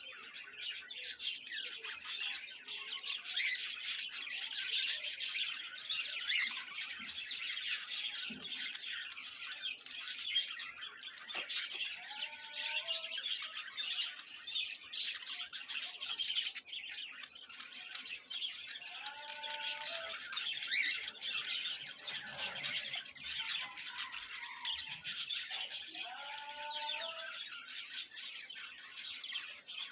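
A flock of caged budgerigars chattering and squawking, a continuous high warbling mass of calls. A few lower, sliding calls stand out from it now and then.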